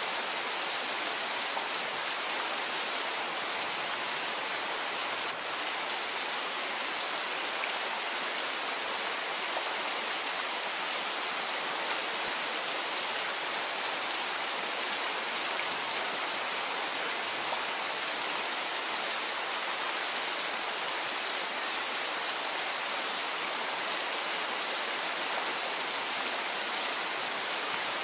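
Steady rain, an even hiss with no distinct drops standing out and no thunder, dipping briefly about five seconds in.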